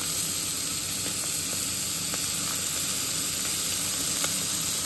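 Butter-basted redfish fillets searing in a hot cast-iron skillet, sizzling steadily with a few faint crackles.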